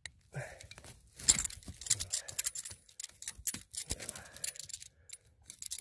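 A metal blade digging, scraping and prying in forest soil and pine-needle duff to dig out a matsutake mushroom: a quick, irregular run of clicks, scrapes and crackles, pausing briefly near the end.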